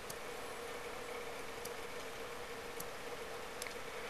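Quiet room tone: a steady hum with hiss, and four faint, sharp clicks spaced roughly a second apart.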